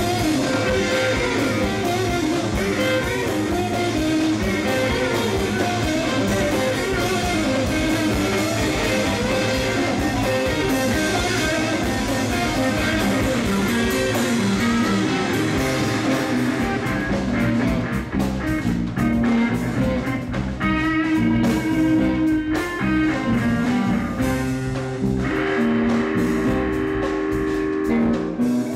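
Live instrumental jam: two electric guitars playing over a drum kit. Toward the end the playing thins out to held guitar notes.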